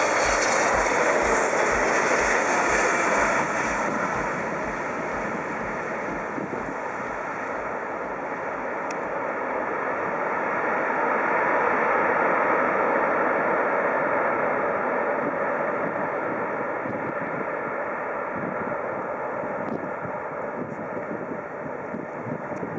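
An airliner passing close on its landing approach: engine noise loud in the first few seconds with a tone sliding down in pitch as it goes by, then a steady, fading rumble.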